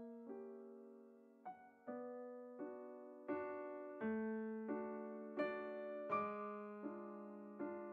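Background music: a slow, gentle piano melody, one note or chord struck about every three quarters of a second, each ringing and fading before the next.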